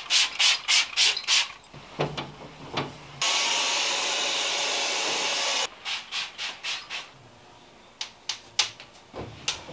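Trigger spray bottle of glass cleaner squirted in quick succession, about four short hisses a second. About three seconds in, a Dyson cordless stick vacuum runs with a steady whine for about two and a half seconds and cuts off suddenly, followed by more short strokes of spraying and cloth wiping on glass.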